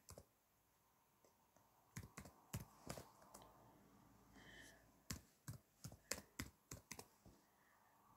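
Faint typing on a keyboard: two short runs of key clicks, the first about two seconds in and the second about five seconds in.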